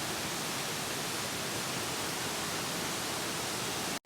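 Waterfall: a steady rush of falling water, an even hiss with no breaks. It cuts out for an instant near the end.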